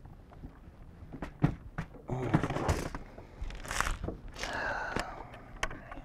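Scattered knocks and clicks with bouts of rustling and scraping: fishing tackle and rods being handled on a bass boat's deck.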